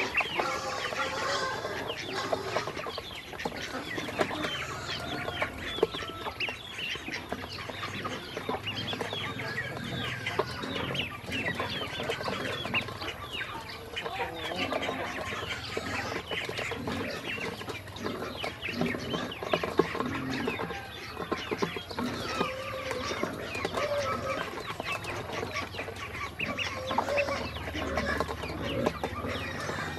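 A bowl full of black and yellow ducklings peeping, with rapid clicks and taps of their bills pecking feed off the stainless steel bowl.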